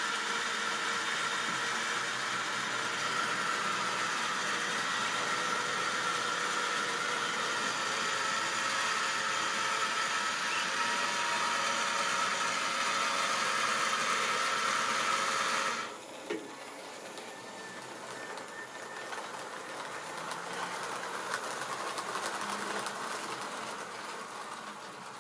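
Model railway locomotive running on the layout, its electric motor whirring steadily with a high whine and the wheels rattling on the track. The whir cuts off suddenly about sixteen seconds in, leaving a fainter running rattle.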